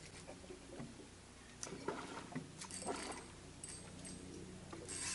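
Faint clicks and thin squeaky whines from a spinning reel as a hooked bull redfish is fought on a bent rod, scattered through the second half with a brief high whine near the end.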